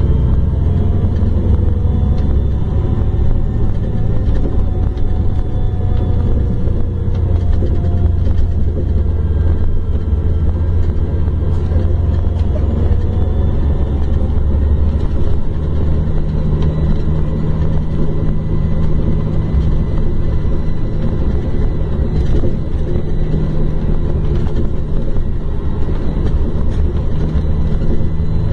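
Scania K410 coach's rear-mounted six-cylinder diesel engine running steadily under way: a deep, even rumble with faint whines that rise and fall over it in the first half. About halfway through, a steady low hum joins in.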